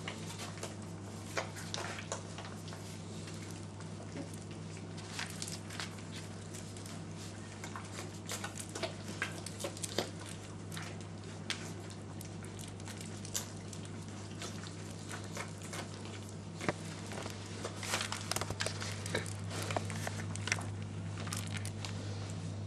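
Flat-coated retriever puppy chewing and worrying a toy octopus: scattered soft scuffs, crinkles and sharp clicks, busier near the end, over a steady low hum.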